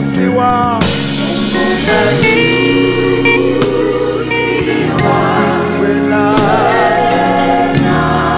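Gospel worship music: a group of singers singing held, wavering notes together over a sustained accompaniment.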